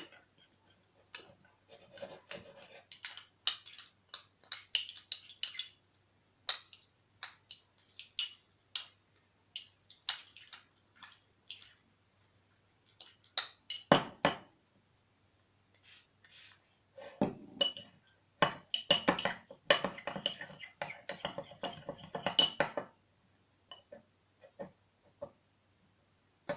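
A utensil clinking and scraping against a bowl while slime is stirred and kneaded. The taps come irregularly, with one louder knock midway and a busy stretch of quick clicking near the end, as the mixture comes together.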